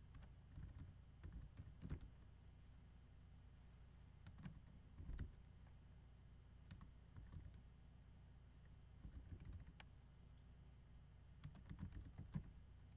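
Faint computer keyboard typing, in five short runs of keystrokes with pauses of a second or two between them.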